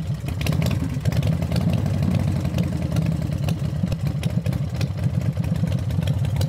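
Engine running at a steady idle: a low, even sound made of fast firing pulses, with no revving.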